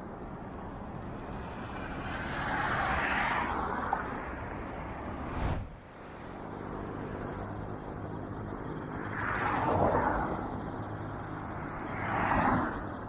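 Road traffic: cars passing close by on a paved road, each swelling and fading as engine and tyre noise, three passes in all, over a steady traffic hum. The sound cuts off suddenly once, about five and a half seconds in.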